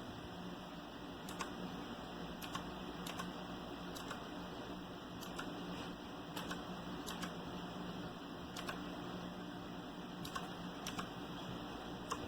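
Unhurried single keystrokes on a mechanical keyboard with clicky blue switches, about a dozen sharp clicks at irregular intervals, over a steady low hum.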